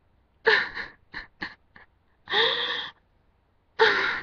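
A person sobbing: several high-pitched wailing cries broken up by short gasping breaths.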